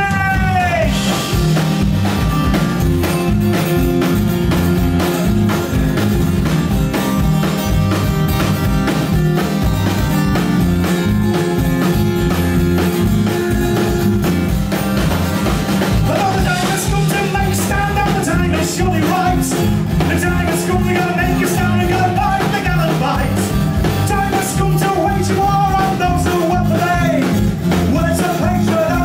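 Live rock band playing: acoustic guitar, electric bass guitar and drum kit keep a steady beat, with a man singing in the second half.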